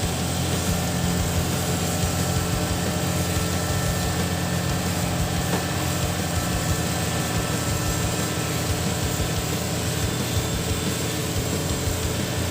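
Heavy diesel engine running steadily with a fast, even low throb.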